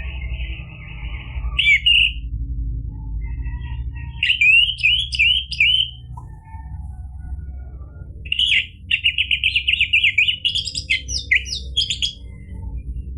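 Orange-headed thrush singing in bursts of quick, varied notes: a harsh buzzy phrase at the start, a run of rising whistled notes a few seconds in, and a fast, dense series of notes in the second half. A low steady hum runs underneath.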